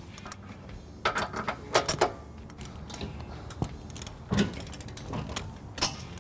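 Ratchet wrench with a 19 mm socket clicking in several short runs as it tightens the carriage bolts of a weight-distribution hitch bracket.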